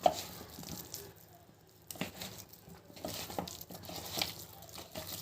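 Irregular soft handling sounds of batter-coated baby corn being worked in a bowl: light wet squishes with scattered small clicks, one sharper click at the start and another about two seconds in.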